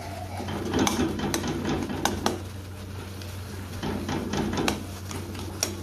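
Metal spatula scraping and clinking against a metal kadai as a tomato-onion masala is stirred, with sharp clicks at uneven intervals. The masala sizzles softly under a steady low hum while it is cooked down soft.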